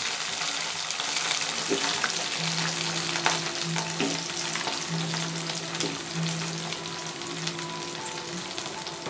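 Oil sizzling steadily in a pan as cut raw mango and brinjal pieces fry with small onions, with scattered light clicks as more pieces are dropped in.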